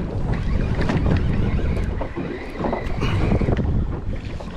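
Wind buffeting the microphone over the wash of a boat drifting at sea, while a conventional fishing reel is cranked to bring in a fish, with scattered irregular ticks.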